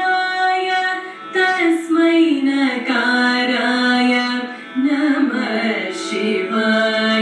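A song: a voice singing long held notes that slide between pitches.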